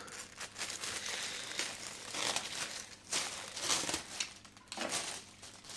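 Plastic mailing bag crinkling and rustling in irregular bursts as it is slit open with a small hand-held cutter and pulled apart.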